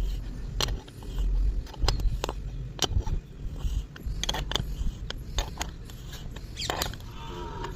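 Irregular clicks and knocks with scraping over a low rumble, typical of hands working material and tools; a longer scrape comes near the end.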